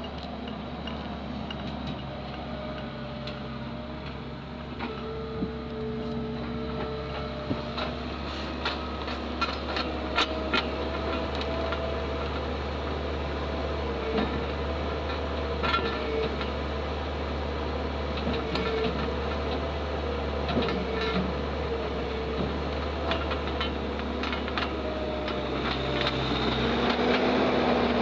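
New Holland skid-steer loader's diesel engine running under load as it carries and tips a bucket of compost material, its pitch rising and falling as the operator works the throttle and hydraulics. Scattered clanks and rattles from the loader arms and bucket come through the middle as the load is dumped, and the engine gets louder near the end.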